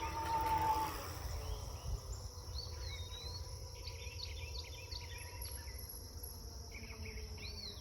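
Songbirds chirping over a steady high drone of insects, with a low rumble of wind on the microphone underneath.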